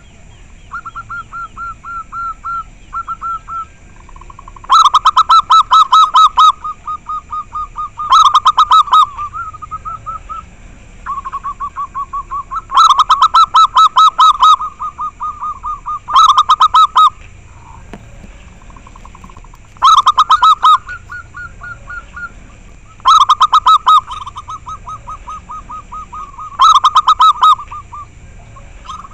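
Zebra doves (perkutut) cooing in rapid trilled phrases. Loud phrases come about every three to four seconds, with quieter trilling in between.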